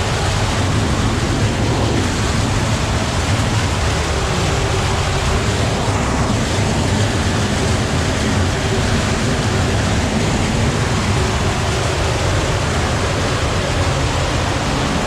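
Loud, steady rush of the spring-fed underground creek pouring through a cave.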